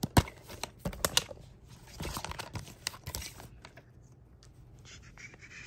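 Plastic DVD case being handled and opened: a string of sharp clicks and snaps in the first second or so, then lighter clicks and taps for another couple of seconds before it goes quieter.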